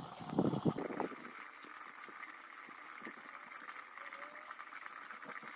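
A man lifting a heavy car wheel overhead lets out a short, loud, effortful breath or grunt in the first second. A steady hiss continues underneath.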